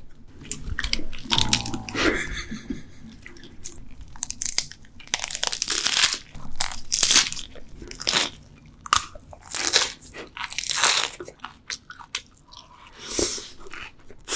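Crunching and chewing of a mouthful of crisp lettuce salad, irregular crisp crunches every second or so.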